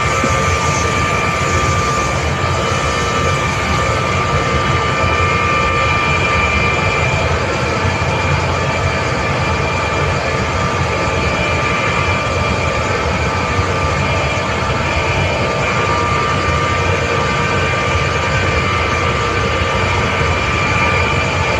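Hitachi screw air compressor running steadily: a constant low rumble with a steady high whine over it.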